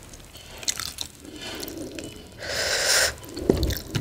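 A lemon half squeezed by hand over rice, its juice dripping onto the plate. About two and a half seconds in, fingers start mixing the rice on the steel plate, with a few soft knocks near the end.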